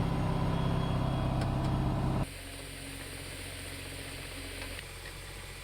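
Iskander launcher vehicle's engine running steadily, held at about 2000 rpm, a loud drone with a strong low hum. About two seconds in the sound drops abruptly to a quieter, steady engine hum.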